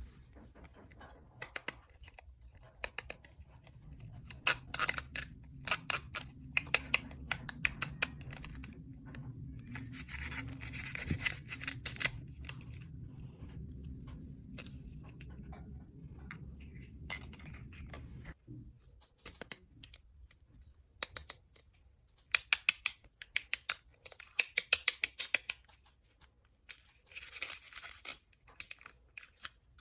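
Handling of small plastic toy parts and packaging: a run of sharp clicks and taps, with rustling and tearing of packaging twice. A low steady hum runs under the first half and stops just past the middle.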